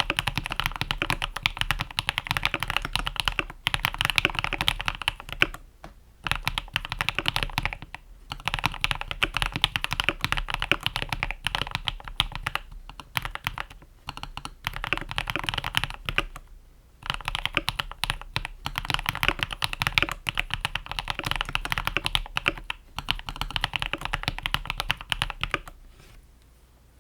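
Fast typing on a mechanical keyboard with lubed and filmed Akko CS Crystal linear switches and PBT Cherry-profile keycaps, the board dampened with PE foam, tape and Holee mods: a dense stream of keystrokes in runs of a few seconds with brief pauses between, dying away near the end.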